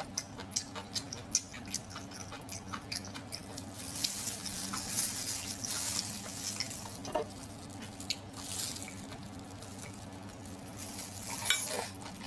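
Close-miked wet chewing and lip smacks of someone eating cooked octopus. About four seconds in comes a couple of seconds of rustling and squelching as a plastic-gloved hand pulls at the octopus.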